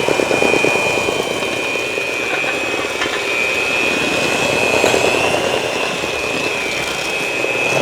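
Electric mixer running steadily, its beaters churning eggs into creamed butter and sugar. A steady high motor whine over a fast churning of the beaters.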